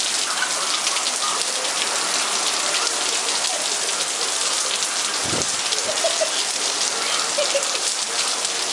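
Heavy rain falling steadily: a dense hiss made of countless drop impacts, with one brief low thump a little past halfway.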